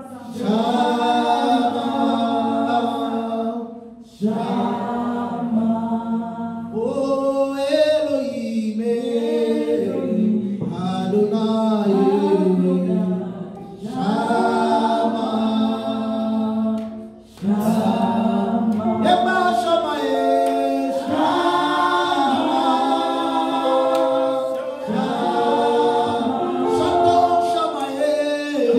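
Worship song sung a cappella by a group of voices, a man leading into a microphone, in long held phrases with brief breaks about 4 and 17 seconds in.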